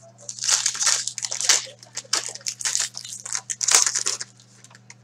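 Foil wrapper of a trading card pack being torn open and crinkled by hand: a run of ripping and crinkling that lasts about four seconds.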